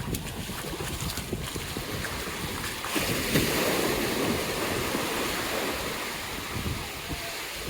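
Surf breaking and washing up the beach. A wave surges in about three seconds in and fades over the next few seconds, with wind buffeting the microphone.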